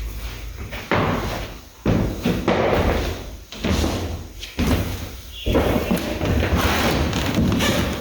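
A series of sudden knocks and thumps, about one a second, followed by a steady rustling noise from about five and a half seconds in.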